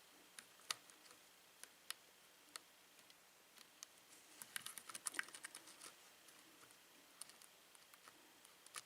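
Faint small metallic clicks and ticks of a lock pick working the pin tumblers of a Schlage lock cylinder under tension, a few single clicks at first, then a quick flurry of them around the middle.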